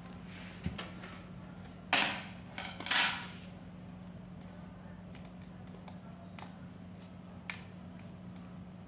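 A few short plastic clicks and taps of laptop parts being handled, as the bottom cover is pressed down over a hard drive that sits too high for it to close, loudest about two and three seconds in. A steady low hum runs under them.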